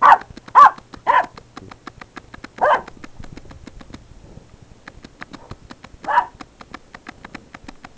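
Puppy barking: three quick sharp barks within the first second and a half, a fourth a little later, and a last one about six seconds in.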